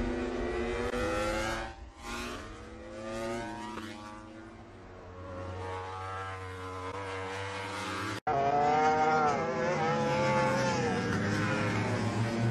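Honda RC213V MotoGP V4 engine revving up and dropping back as the bike is ridden through corners. About eight seconds in the sound cuts abruptly to another pass, where the engine note again rises and falls and is louder.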